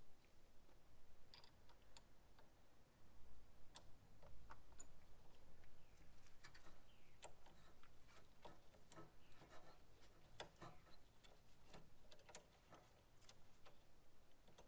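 Faint, irregular clicks and light taps of hand work in a truck's engine bay: small parts and tools being handled, with no steady machine sound.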